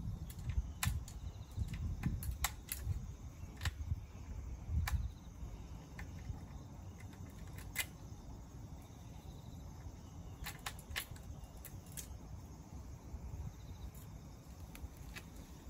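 Quiet outdoor background: a low rumble, stronger in the first few seconds, with faint sharp clicks scattered through it. No engine is running.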